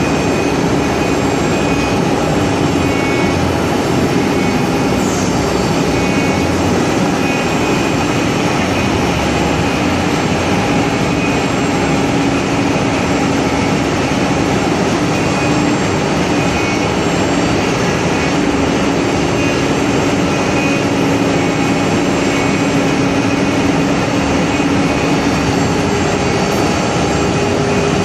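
Multi-head 4-axis wood CNC router running steadily, its spindles whining over a constant rush of noise as they machine wooden sofa legs.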